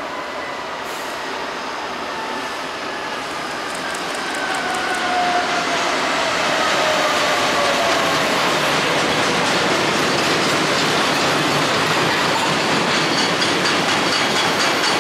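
Freight train of loaded steel-coil wagons rolling past close by, the wheels clicking rhythmically over the rail joints. A falling whine sounds in the first few seconds, and the sound grows louder about five seconds in as the wagons come alongside.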